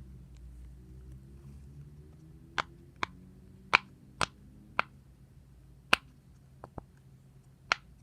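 A series of sharp, short pops at uneven intervals, about nine of them, starting a couple of seconds in, over a steady low hum.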